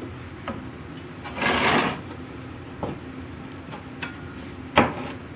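Wooden parts of a machinist chest being handled: a short scraping sound about a second and a half in, a few light taps, and a sharp knock near the end, over a steady low hum.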